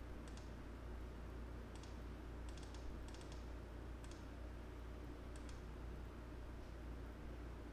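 Computer mouse clicks, scattered singly and in quick runs of two or three, over a steady low electrical hum.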